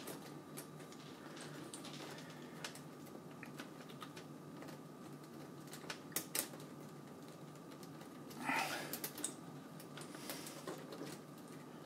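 Scattered light clicks and rustling of cables and small plastic parts being handled inside a PC case, with two sharper clicks about six seconds in and a brief burst of rustling and clicking a little later.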